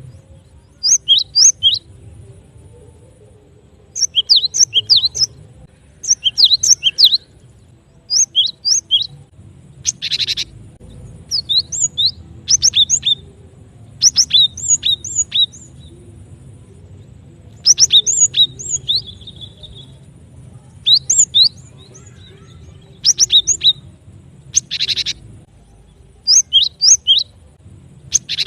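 Cinereous tit (gelatik batu) calls played as a trapper's lure recording: short bouts of sharp, high, falling chirps about every two seconds, twice broken by a longer buzzy note.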